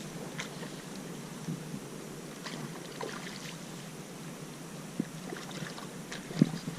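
Shallow water lapping and splashing, with scattered small clicks and two sharp knocks, the louder one about six and a half seconds in.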